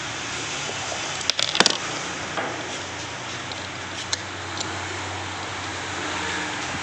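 A few sharp metallic clicks and clinks of starter-motor parts being handled and fitted during reassembly: a quick cluster about a second and a half in, then single ticks, over a steady background hiss.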